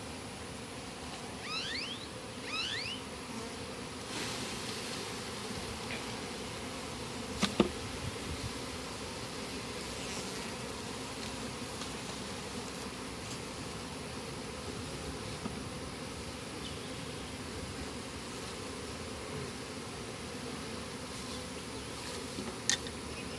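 Many honeybees buzzing steadily around their opened colony, a dense even hum. A few short rising chirps come early, and two sharp clicks about seven and a half seconds in.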